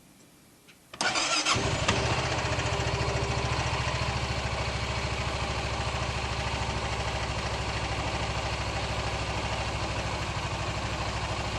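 Honda Pioneer 700 side-by-side's single-cylinder engine starting about a second in and settling into a steady, smooth idle, run after a fresh oil fill.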